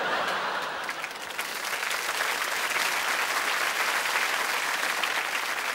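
Studio audience applauding, a steady wash of many hands clapping.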